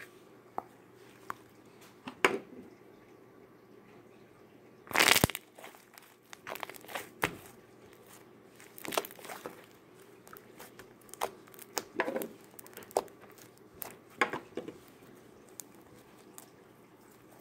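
Homemade green slime being squeezed and kneaded by hand against a wooden tabletop: irregular short sticky squelches and pops, the loudest a longer one about five seconds in.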